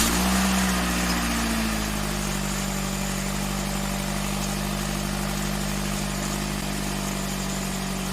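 Suzuki Swift car engine idling steadily just after start-up, its idle settling slightly lower in the first second or two.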